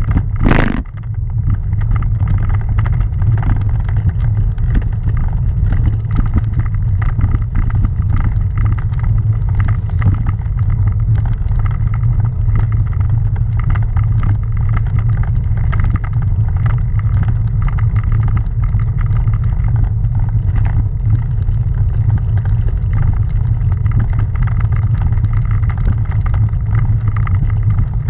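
Continuous rumble and rattle of a bicycle's tyres rolling slowly over granite cobblestones, the camera mount shaking with many small knocks. One sharp knock comes about half a second in.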